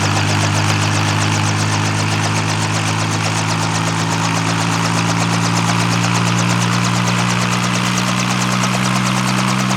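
Helicopter running with a steady engine hum whose pitch creeps slightly higher through the middle, over a hiss with a fast, even chop.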